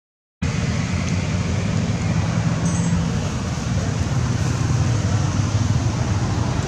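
Steady low rumble of background noise that starts suddenly about half a second in, after a moment of silence.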